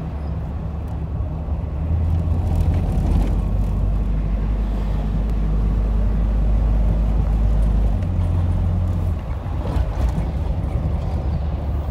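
1985 Toyota Celica GT-S's 22R four-cylinder engine, freshly resealed, running under way, heard from inside the cabin together with road noise. Its low drone steps to a different pitch about eight seconds in.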